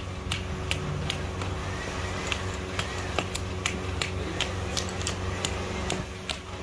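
Brass castings clinking against one another as they are picked out of the sand and sorted with tongs: sharp metallic clinks, irregular, about two or three a second, over a steady low hum.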